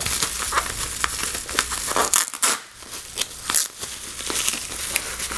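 Clear plastic packing wrap crinkling and crackling as it is peeled off by hand, in irregular bursts, briefly quieter about halfway through.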